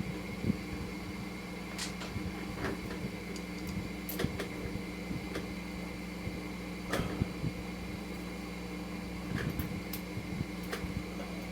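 Scattered light clicks and knocks of a motorcycle's bracket, bolts and wiring being handled and fitted by hand, over a steady background hum.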